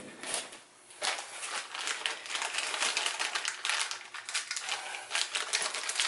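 Small metal hardware from a new ball joint kit (nuts, bolts, washers) clicking and rattling together as it is picked through by hand in its cardboard box. A fast, uneven run of small clicks starts about a second in and keeps on.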